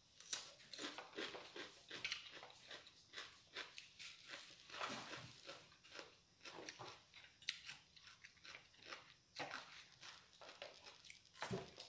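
Faint mouth sounds of someone eating: chewing, with irregular small clicks and smacks.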